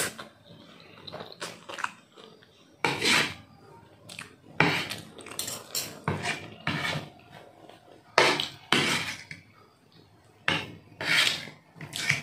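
Noodles being slurped in repeated short bursts, with chewing and a metal fork and spoon clinking and scraping against a ceramic plate.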